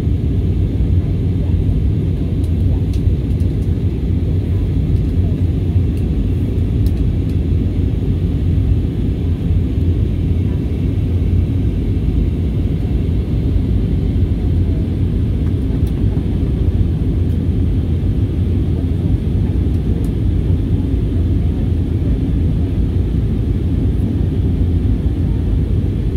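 Steady low rumble of an airliner's engines and rushing air, heard from inside the passenger cabin.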